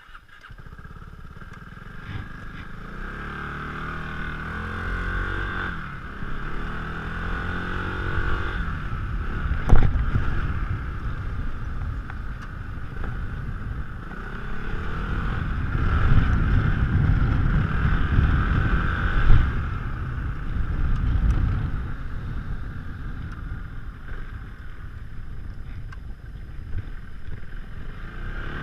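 Yamaha X-Max 400 scooter's single-cylinder engine through an Akrapovic exhaust, pulling away and riding, the revs rising and falling with the throttle, with road and wind noise. Two short sharp knocks, one about ten seconds in and one near twenty.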